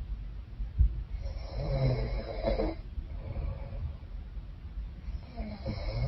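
A woman snoring in her sleep through a congested, runny nose: one long snore starting about a second in, and another beginning near the end. A short thump comes just before the first snore.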